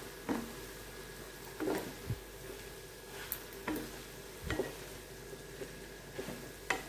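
A spatula stirring and scraping mashed boiled potatoes into an onion and green chilli masala in a non-stick pan. Irregular knocks and scrapes come about once a second over a faint sizzle from the pan on low heat.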